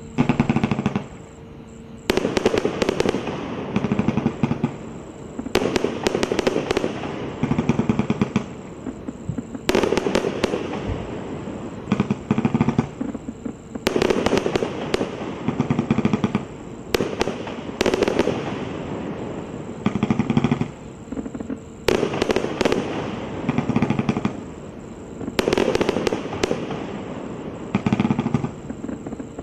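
Mandarin MC1091 49-shot consumer fireworks cake firing. Its shots come in quick clusters of bangs, a new cluster every couple of seconds.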